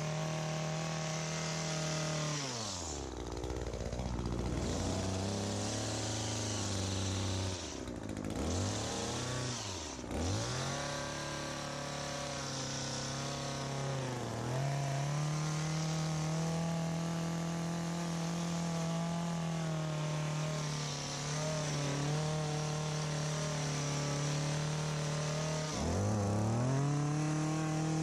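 ECHO PAS2620 two-stroke power head driving an articulating hedge trimmer attachment, running mostly at high throttle while cutting. Several times the engine speed drops away and climbs back as the throttle is eased off and reopened.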